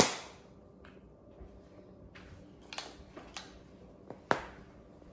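A plastic Easter egg snapping shut with a sharp click, then a few faint clicks and taps while the sealed egg with Alka-Seltzer and water sits on its stand, with another sharp click about four seconds in.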